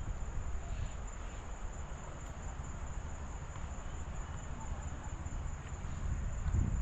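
A steady, unbroken high-pitched cricket trill over a low rumbling background noise.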